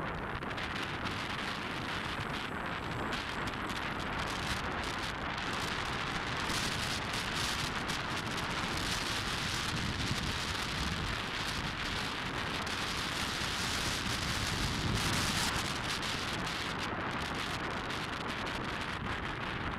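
Steady rushing wind noise on the microphone of a camera carried on a moving bike, swelling slightly about halfway through.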